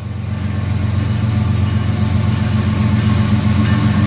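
Freight train's diesel locomotive engines passing close by: a steady low drone, growing slowly louder.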